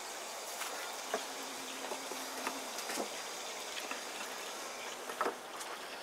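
Honeybees humming steadily from an open top bar hive, with a few light knocks as the wooden top bars are handled.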